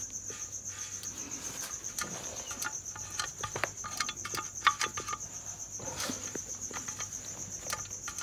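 A cricket chirping steadily in a fast, even trill. Scattered sharp clicks and knocks of the cast iron mill head being handled sound over it, the loudest about halfway through.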